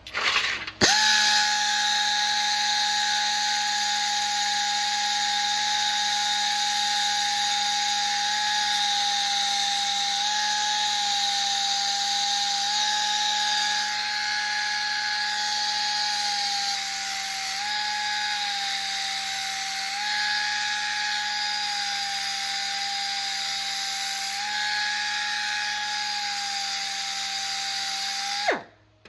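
Small handheld belt sander running with a steady high whine and hiss. Its pitch dips slightly in small steps now and then as it is loaded, and it stops abruptly near the end.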